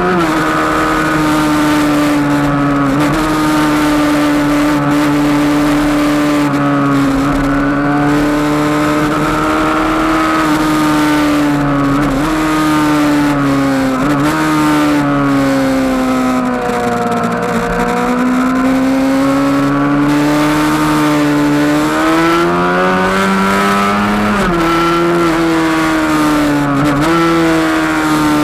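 Kawasaki 636 sportbike's inline-four engine pulling hard at high revs on track, with wind rush over the bike-mounted camera. The pitch jumps several times as gears change, sags once about halfway through as the bike slows for a corner, then climbs again.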